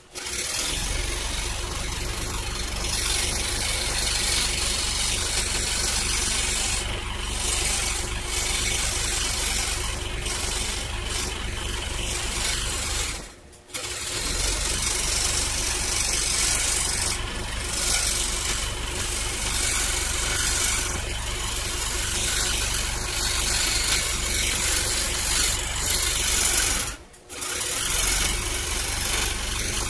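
Scroll saw running and cutting thin 1/8-inch plywood: a steady cutting noise over a low motor hum. It drops out sharply twice, for about half a second each time.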